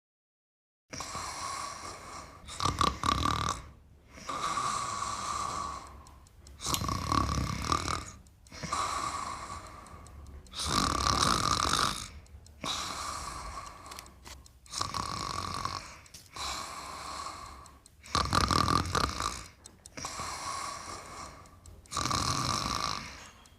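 A person snoring, starting about a second in: one noisy breath roughly every two seconds, some snores much louder and deeper than others.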